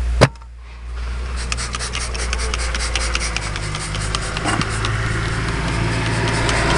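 Close handling noise: a sharp click about a quarter second in, then rapid rubbing and scraping, over a low steady hum.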